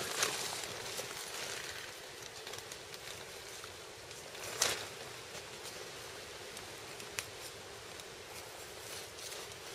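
Butchering a deer carcass by hand with a folding knife: soft rustling and wet handling sounds of meat being cut and pulled, over a steady background hiss. A sharp click about halfway through is the loudest sound.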